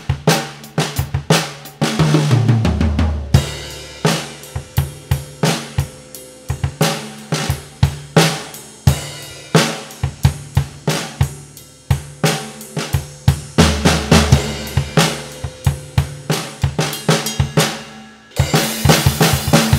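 Pearl Vision Birch five-piece drum kit with Zildjian ZBT cymbals played as a steady groove on kick, snare, hi-hat and cymbals, with a fill down the toms about two seconds in.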